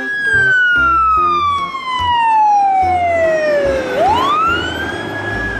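Fire engine siren wailing: one long tone that falls slowly for about four seconds, then sweeps quickly back up and holds high near the end.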